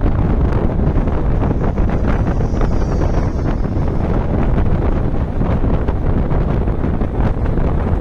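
Wind rushing and buffeting over the microphone at the side window of a moving bus, over the steady low rumble of the bus and its tyres on the road.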